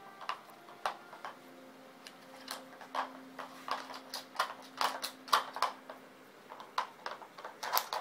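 Plastic pieces of a Dog Brick treat puzzle clicking and knocking irregularly as a dog works at it to get at the treats.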